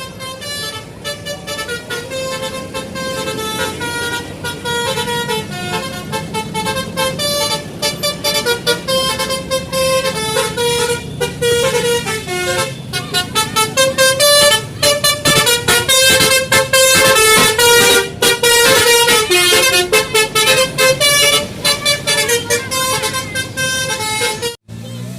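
Telolet multi-tone musical horn on a Basuri bus playing a quick melody of short tooting notes at changing pitches, several a second. It gets louder about halfway through and cuts off abruptly just before the end.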